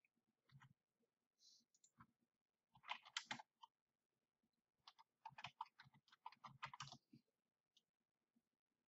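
Faint keystrokes on a computer keyboard: a short burst of typing about three seconds in and a longer run from about five to seven seconds, with a few single clicks before them.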